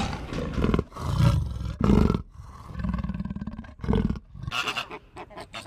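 Leopard roaring and growling in a series of about five deep, rasping calls roughly a second apart. Shorter, higher-pitched animal calls begin near the end.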